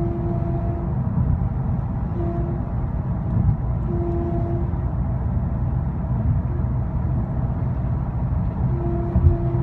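Steady road and engine rumble of a 2010 Skoda Octavia 1.6 CR TDI at motorway speed, with a mid-pitched whine that comes and goes in four short spells of under a second each. The whine appears only intermittently above about 60 mph, with no change of pedal input, and its cause is unknown to the owner.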